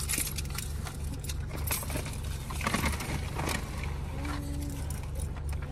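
Low steady hum of a parked car's idling engine, with scattered crinkles and clicks from food wrappers being handled and food being eaten.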